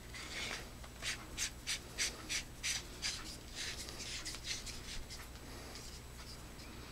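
Threaded battery tube of a Nitecore P36 flashlight being screwed back together by hand: a run of short rasping strokes, about three a second, one per twist, fading out after about five seconds.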